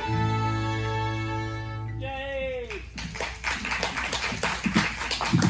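A small ensemble of fiddles with acoustic guitar holds the final chord of a beginner's tune, the last note sliding down in pitch as it ends about two seconds in. Then the audience applauds.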